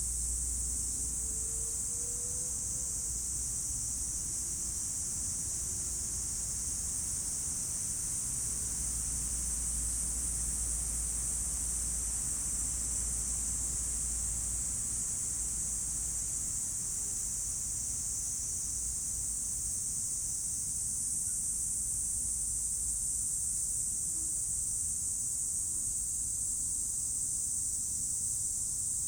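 Steady chorus of insects, most likely cicadas, holding one even high-pitched hiss, with a faint low rumble beneath it.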